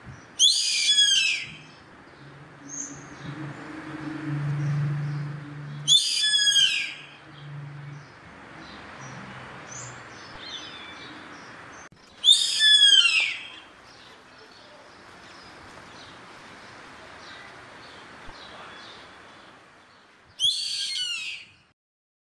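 Yellow-headed caracara giving four harsh, high screeching calls, each about a second long and falling in pitch, spaced several seconds apart, with faint chatter from other birds between them.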